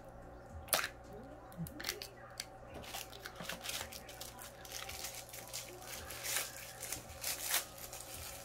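Takeout packaging handled by hand: a sealed plastic dipping-sauce cup's lid is peeled open, giving a string of short, sharp crinkles and tearing crackles, the loudest about a second in and near the end.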